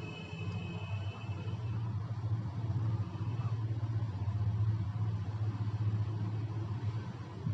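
Hot air rework station blowing steadily, a low even rumble, while a replacement capacitor is reflowed onto a phone motherboard.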